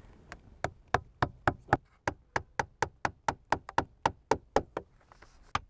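Hammer driving small nails to fix metal flashing against a skylight frame: an even run of quick strikes, about four a second, then a short pause and a couple more blows near the end.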